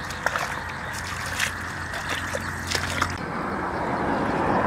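Footsteps squelching and splashing through wet, sloppy mud: a few irregular sharp steps over a steady background rush.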